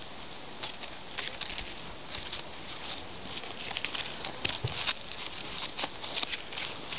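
Dry fallen leaves crackling and rustling as fingers handle them close to the microphone. The irregular small crackles start sparse and get busier after about three seconds.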